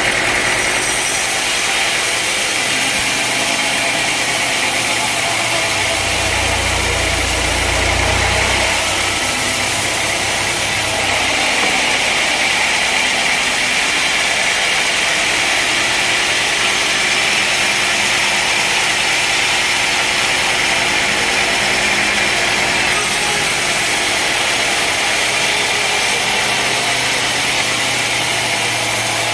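Sawmill machinery running steadily with an engine note, with a deeper rumble joining from about six to eleven seconds in.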